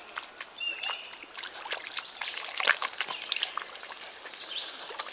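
Dog wading and splashing through shallow water and mud, a stream of small splashes and sloshes. A short high chirp sounds about half a second in.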